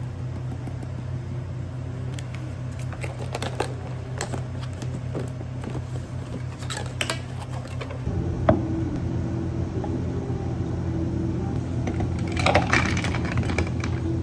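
Light clinks and taps of cups and utensils during drink-making, over the steady hum of café equipment. The hum changes abruptly about eight seconds in, and there is a quick run of louder clinks near the end.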